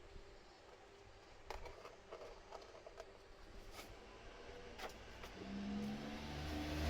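A few light clicks and knocks, then a motor vehicle's engine hum that grows steadily louder over the last second and a half.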